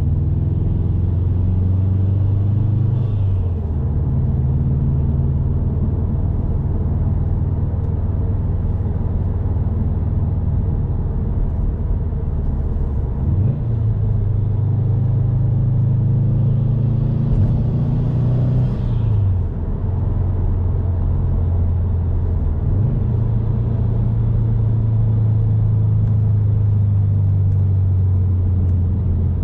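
Subaru WRX STI's turbocharged flat-four engine running under way, with a steady low drone and the added intake sound of a MAP Stage 1+ intake and tune. The engine note drops away and picks up again at a new pitch several times.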